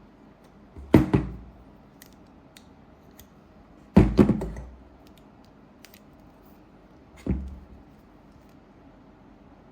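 Hard objects being handled and set down: three knocks, the first a quick double, the second longer with a short rattle, with a few faint clicks between them.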